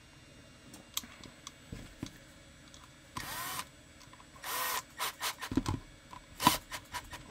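Small power driver running in two short bursts, about three and four and a half seconds in, driving screws into a Kydex holster's mounting hardware. Light clicks and taps of parts being handled come before and after, with a sharp knock near the end.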